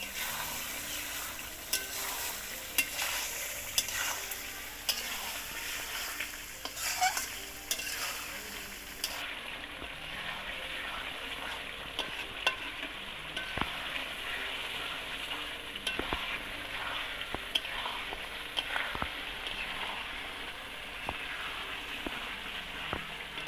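Beef liver pieces and spices sizzling in hot oil in a metal pot while a spatula stirs them, scraping and knocking against the pot in frequent sharp clicks. This is the dry-frying (bhuna) stage, the curry being browned down before water is added.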